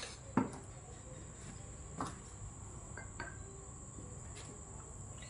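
Small ceramic bowl set down on a table with a sharp clink about half a second in, followed by a few fainter knocks.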